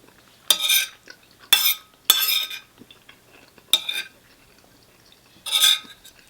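Cutlery scraping and stirring through rice in a ready-meal container, five short scrapes spread over a few seconds.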